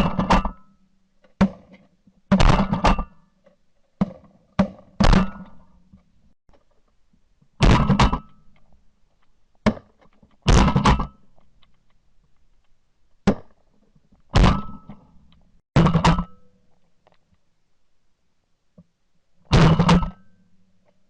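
A series of shotgun shots recorded from a camera mounted on the gun, some fired in quick pairs and triples, with quiet gaps of a few seconds between groups.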